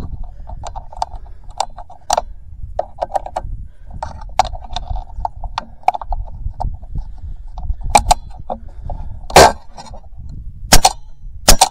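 Handling noise from an Edgun Leshiy 2 PCP air rifle with an action camera mounted on it as it is carried: scattered clicks and knocks over a low rumble. A few loud sharp cracks follow, the first about nine seconds in and another about a second later.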